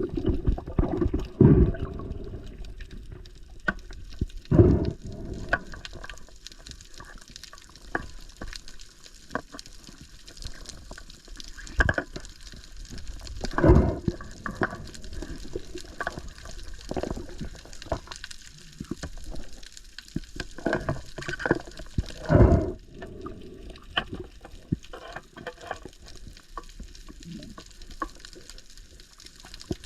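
Water sloshing and splashing with irregular knocks and thumps, the sound of a diver moving in the sea.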